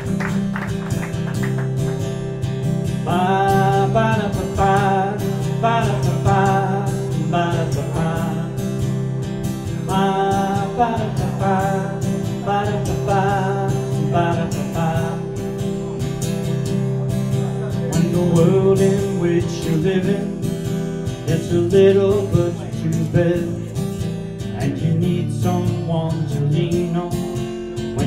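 Live acoustic guitar strummed with a man singing over it. A sustained chord sounds throughout, and the vocal melody comes in about three seconds in, pauses briefly past the middle, then returns.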